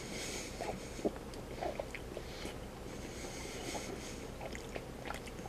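A person chewing a mouthful of soft chicken pot pie, with small, irregular clicks.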